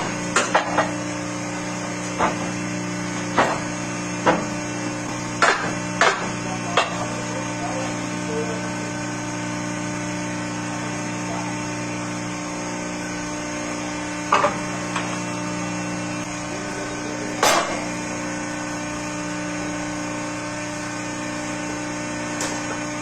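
Sharp knocks or strikes, about a dozen spaced irregularly, most of them in the first several seconds and a few more later, over a steady machine hum in a workshop.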